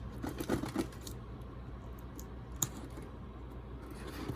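A gaming mouse box being opened by hand: a few light taps and clicks of the packaging in the first second, then a single sharper click about two and a half seconds in.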